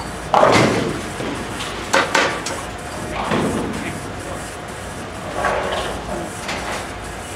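A bowling ball crashes into the pins about half a second in, a sudden clatter that dies away quickly. More sharp knocks of pins and balls follow around two seconds in.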